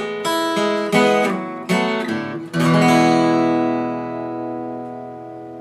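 Acoustic guitar strummed: a few quick chords, then a last chord left to ring and slowly fade.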